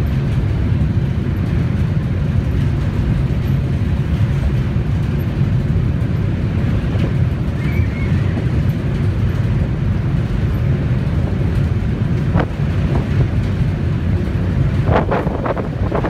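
Wind buffeting the microphone, a loud, steady low rumble. A few short, sharper sounds come in near the end.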